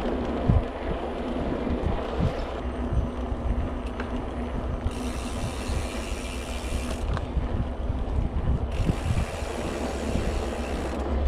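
Mountain bike rolling along a paved path: tyre rumble and wind buffeting the microphone, with the rear hub's freewheel ticking at times.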